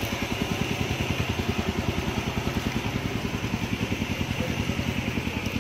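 A small engine idling with a steady, rapid put-put beat.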